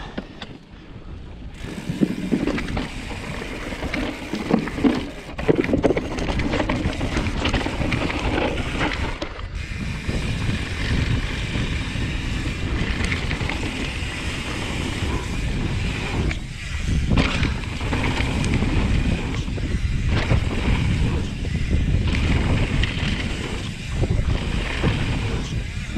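Mountain bike descending a dirt and gravel trail: tyre rumble on loose ground and the rattle of chain and frame under heavy wind buffeting on the microphone, building up over the first couple of seconds as the bike rolls off from a standstill.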